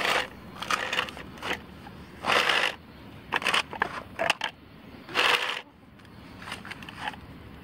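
Plastic fish measuring mat rustling and crinkling as it is handled, spread out and flattened on concrete, in several short bursts with light knocks and clicks between; the loudest bursts come about two and a half and five seconds in.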